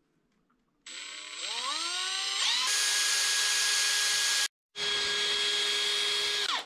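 Cordless drill drilling a small hole through a metal ice-fishing lure. The motor starts about a second in and rises in pitch as it spins up, then runs steady at high speed. It cuts out briefly partway through, runs again, and winds down at the end.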